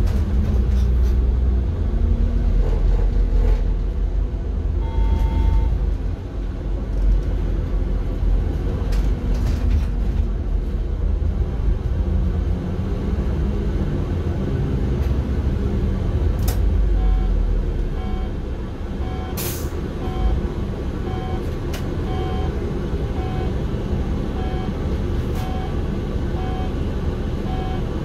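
City bus heard from on board: the engine and drivetrain rumble under way, then ease off a little over halfway through. A short chime sounds early, a sharp air-brake hiss comes about two-thirds of the way in, and a regular electronic beep repeats about three times every two seconds until the end.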